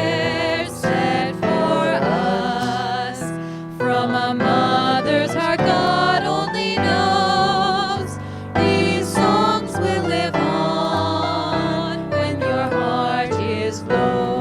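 A song: a singing voice with vibrato over instrumental accompaniment, with held notes changing about every second.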